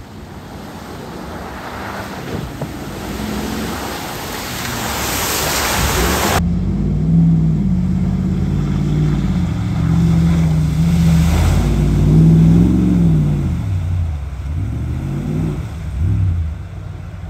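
Ram 2500 Power Wagon trucks ploughing through a flooded trail, a rush of water spray that builds for about six seconds and cuts off suddenly. Then the truck's 6.4-litre Hemi V8 petrol engine revs up and down as it pushes through a muddy puddle, its pitch rising and falling several times.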